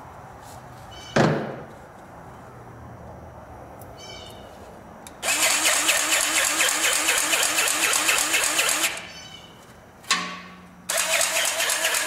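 Powered grease gun pumping grease into the steer-axle fittings (kingpins, slack adjuster, S-cam) of a Volvo VNL truck. A short burst about a second in, then two long runs of rapid rhythmic pumping at about four strokes a second, one from about five seconds in to nine and another from about eleven seconds on.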